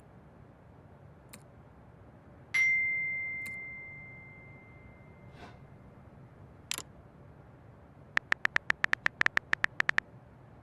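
A single electronic ding, like a phone notification chime, rings out a couple of seconds in and fades over about three seconds. A click follows, then near the end a fast run of short electronic beeps, about seven a second, for about two seconds. A faint steady room hum lies underneath.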